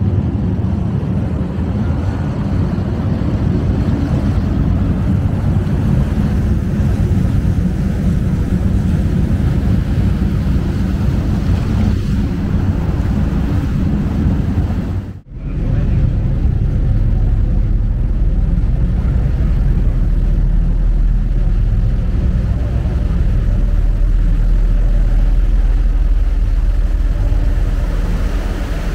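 Steady drone of a passenger ship's engine under way, mixed with rushing water from the wake. The sound drops out briefly about halfway through, and a deep low hum is stronger after that.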